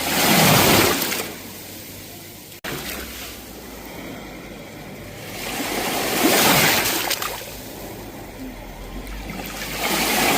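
Sea waves breaking and washing up the shore, swelling loud about half a second in and again past the middle, with another building near the end. A split-second gap in the sound about two and a half seconds in.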